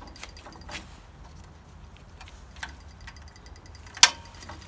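Rubber heated hand grip being twisted onto a snowblower handlebar: faint scattered ticks and rubbing over a low hum, with one sharp click about four seconds in.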